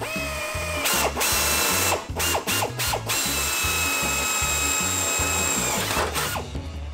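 Power drill whining at high speed as it bores holes through layers of truck body sheet metal for plug welds. It runs in two stretches: a short one at the start and a longer steady one from about three seconds in until shortly before the end, with stops and starts between them.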